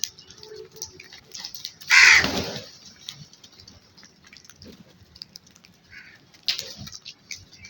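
A crow caws once loudly about two seconds in, with a few faint clicks and a shorter sound later.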